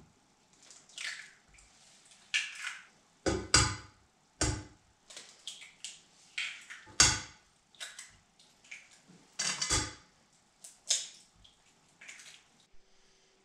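Eggs being cracked one after another on the rim of a frying pan: a dozen or so sharp knocks and crackles of eggshell, some with the contents dripping into the pan.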